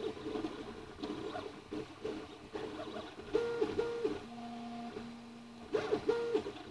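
Flashforge Creator (AX1058) 3D printer printing, its stepper motors whining in short pitched tones that jump up and down as the print head makes its moves. Around the middle a lower steady tone holds for about a second and a half.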